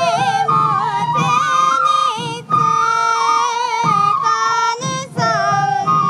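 Sansa odori festival music: bamboo fue flutes play a wavering, stepwise melody over the beat of many sansa taiko drums worn and struck by the dancers.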